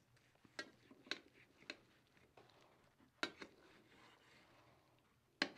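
Faint clinks of a knife and carving fork against a metal plate as a roast is carved: about six short, sharp clicks, the loudest near the end.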